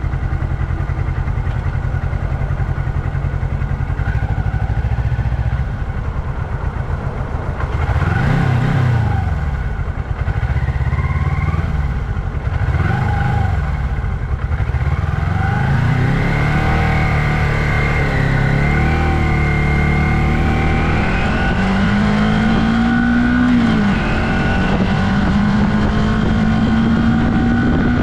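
1982 Yamaha XS400 Maxim's parallel-twin engine running on the road. Its revs swing up and down a couple of times in the middle, then climb and hold high through the second half, with one brief drop in pitch about three-quarters in.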